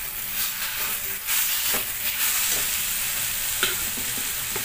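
Baingan bharta mixture frying in oil in a steel wok and stirred with a steel spatula: a steady sizzle with occasional scrapes and taps of the spatula on the pan.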